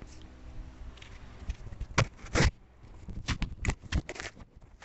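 Clip-on lapel microphone being handled and unclipped: rubbing and scraping against clothing, with a string of sharp knocks, the loudest about two seconds in and a cluster of them near the end.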